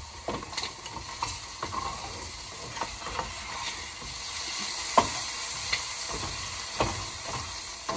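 Shrimp sizzling in a frying pan as they are stirred, the utensil scraping and clicking against the pan, with a sharper click about five seconds in.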